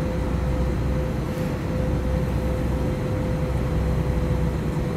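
Jet airliner cabin noise during the climb: the steady low rumble of the wing-mounted jet engines and airflow, with a steady hum running through it.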